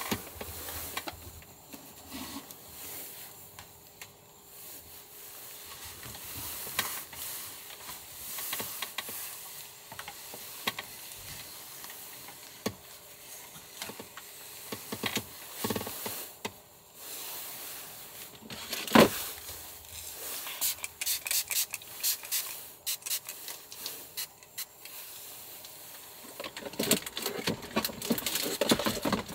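Small objects being handled close up: scattered clicks, taps and rubbing over a faint steady hiss. There is one sharp knock about two-thirds of the way in, and quick runs of clicks near the end.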